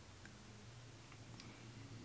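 Near silence: a few faint light clicks from a phone and its case being handled, over a low steady room hum.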